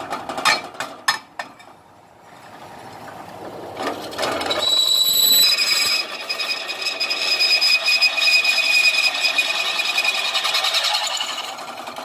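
Bench drill press with a 12 mm bit cutting into 5 mm steel U-channel: a few knocks at first, the motor picks up again about three seconds in, and from about five seconds in the bit squeals high and steady as it cuts until near the end. The motor is underpowered and stalls under hard feed pressure.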